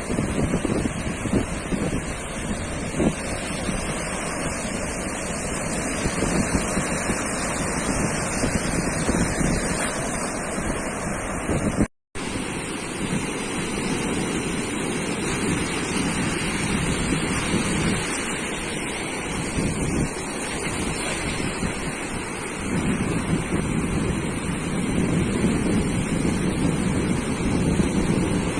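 Ocean surf washing onto a sandy beach in a steady wash, with wind buffeting the microphone. The sound drops out for a split second about twelve seconds in.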